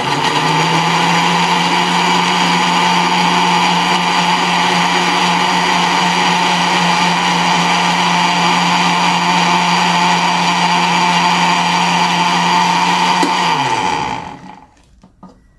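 Electric countertop blender running steadily at full speed, blending milk and yogurt into a milkshake. About 14 seconds in its motor winds down with a falling pitch as it is switched off.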